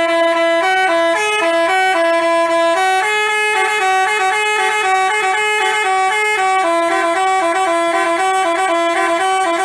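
Basuri 'telolet' multi-tone bus horn playing a tune: a quick run of held, stepped notes, with two or more pitches sounding together.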